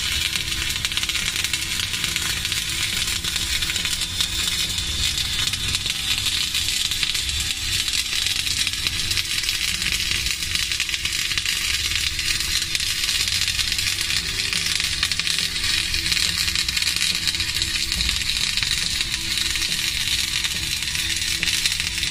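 Flux-cored arc welding with rutile flux-cored wire: the arc runs in a steady, unbroken crackle and sizzle as a cap pass is laid on a multi-pass weld.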